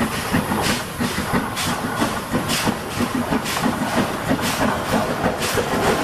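Real steam locomotive running, chuffing about twice a second over a steady hiss of steam.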